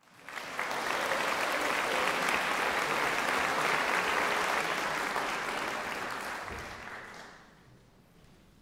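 Audience applauding, starting at once at full strength and dying away about seven seconds in.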